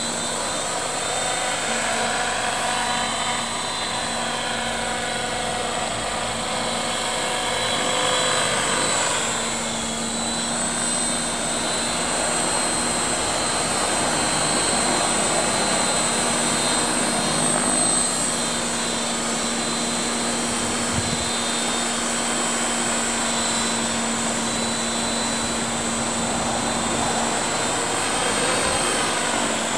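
CopterX 500 SE electric radio-controlled helicopter in flight: a steady rotor hum with a high motor whine that shifts slightly in pitch as it moves around. Gusty wind noise on the microphone.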